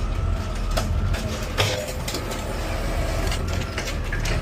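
Garbage truck engine running with a steady low rumble, with several sharp knocks and rattles scattered through it.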